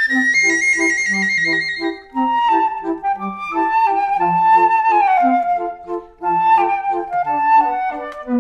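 Background music: a flute-like melody running up and down in quick steps over short, evenly repeating low notes.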